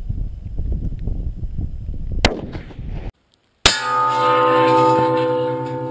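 A bullet strikes a hanging steel plate target with a sudden clang about three and a half seconds in, and the plate rings on with a steady metallic tone that slowly fades. Before the hit, gusty wind noise covers the microphone, with one sharp crack a little past two seconds in.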